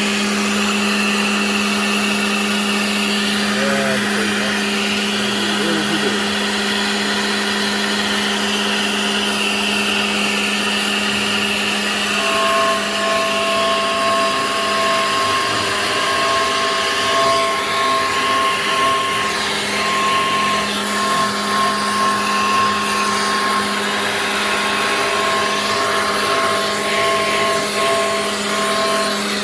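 Genmitsu 3020 PRO MAX CNC router's spindle running steadily while milling, a constant hum over a whirring cutting noise. About twelve seconds in, two higher steady tones join and continue.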